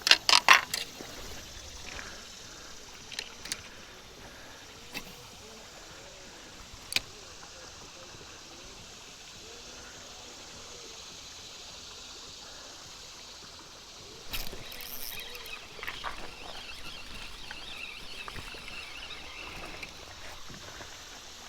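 A burst of sharp knocks and clunks on a kayak, then a few lighter clicks over a quiet wash of river water. Past the middle, water starts splashing and trickling against the hull.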